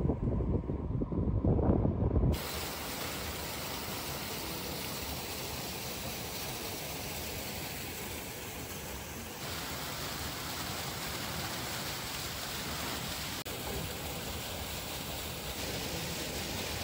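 Wind buffeting the microphone with a low, uneven rumble, then an abrupt cut about two seconds in to a steady, even hiss with no clear source.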